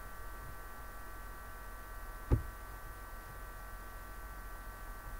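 Steady electrical hum with a faint high whine in the recording, and a single short thump about two seconds in.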